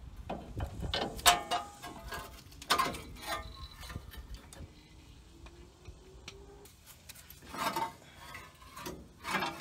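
Scattered metal clicks and clanks as a new lower ball joint is handled and fitted up against the steering knuckle of a truck's front suspension. They come in clusters, about a second in, around three seconds, and again near the end.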